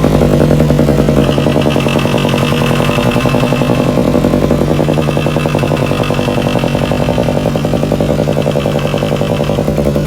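A small engine running steadily at idle, with an even, rapid firing pulse and a fainter higher whine that comes and goes.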